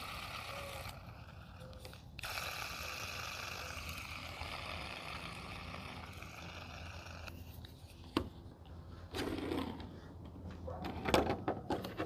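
Plastic fidget toys and their packaging being handled: a steady scraping rustle for about five seconds, then a single sharp click, and a cluster of taps and clicks near the end.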